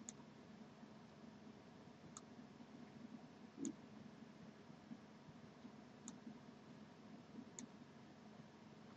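Faint computer mouse button clicks, about five spread over several seconds, as items are clicked and dragged, against near-silent room tone.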